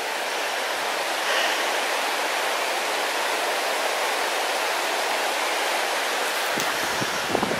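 A shallow, rocky river rushing over boulders and rapids, a steady rush of fast-flowing water.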